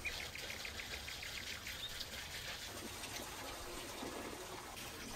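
Small birds chirping: a quick, even run of short high chirps over the first two seconds, then scattered calls, with a few faint clicks.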